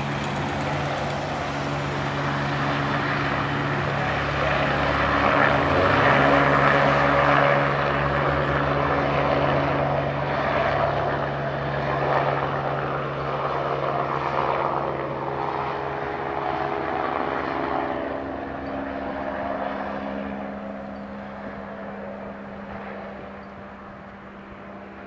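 Agusta A109E twin-turbine helicopter taking off: steady rotor beat and turbine whine, loudest about five to eight seconds in, then fading gradually as it climbs away.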